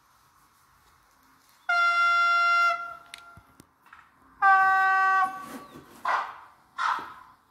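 Sound decoder of a Roco HO-scale Siemens Vectron electric locomotive model sounding its horn twice through the model's small loudspeaker: a blast of about a second, then a shorter one. Two short hisses follow near the end.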